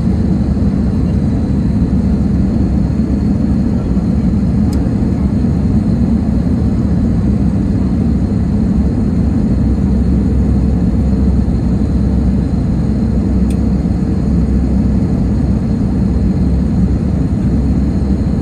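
Steady low cabin rumble of an Airbus A320neo on landing approach: airflow and its Pratt & Whitney PW1100G geared turbofan engines heard from a window seat beside the wing, with a faint steady hum over it.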